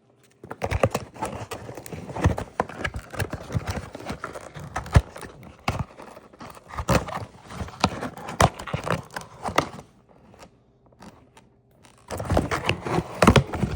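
Cardboard toy box being opened by hand: irregular clicks, knocks and scraping of cardboard, going quieter for a couple of seconds near the end.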